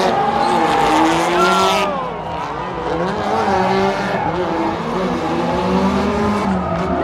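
Drift cars sliding in tandem, their engines revving up and down while the tires screech.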